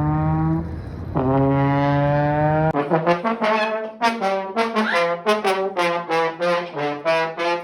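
Brass horn notes: two long held notes, the second sagging slightly in pitch, then from about three seconds in a quick run of short notes, about three or four a second, jumping up and down in pitch.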